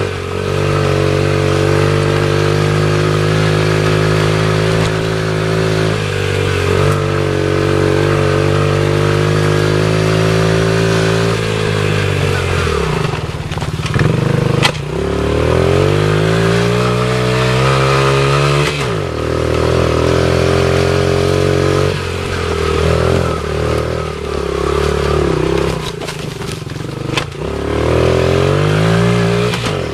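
Dirt bike engine heard from on board while riding a bumpy trail, its note rising and falling with the throttle. The revs drop off sharply about twelve seconds in and again near the middle, then pick back up, with a few sharp knocks as the bike hits bumps.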